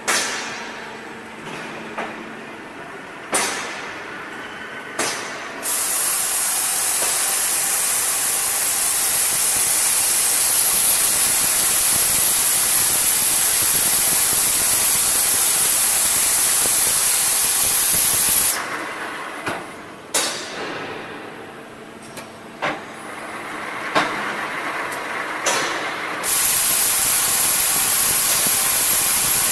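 CNC H-beam drilling machine at work: a few sharp metallic knocks, then a loud steady hiss for about thirteen seconds. After that comes another run of clanks and knocks as the machine handles the beam, and the hiss starts again near the end.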